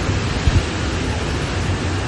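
Storm wind blowing hard, buffeting the microphone with a low rumble.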